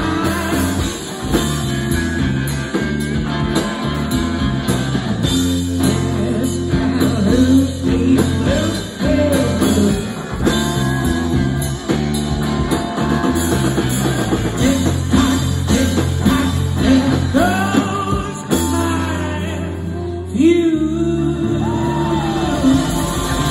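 Live blues-rock band playing: electric guitars, electric bass and drum kit, loud and continuous.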